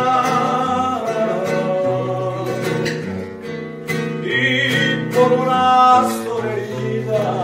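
A strummed acoustic guitar with a man singing a Spanish-language song in long held notes.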